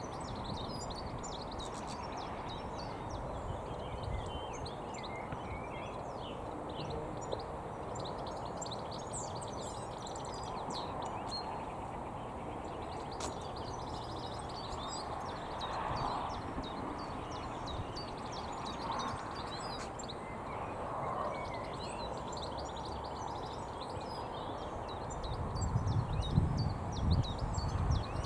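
European goldfinch singing: a run of quick, high twittering chirps and trills over a steady background hiss, with some low rumbling near the end.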